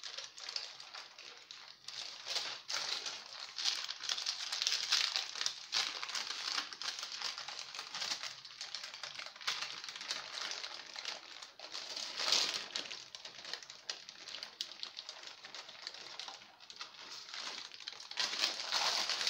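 Baking parchment crinkling and rustling as it is peeled off the back of a baked génoise sponge sheet: a stream of small crackles in uneven louder patches.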